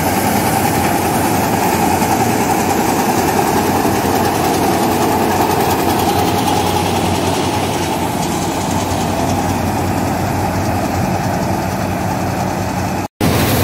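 Kartar 4000 Crop Cruiser combine harvester running while it cuts a dry grain crop: a loud, steady drone of engine and threshing machinery. It breaks off for an instant near the end.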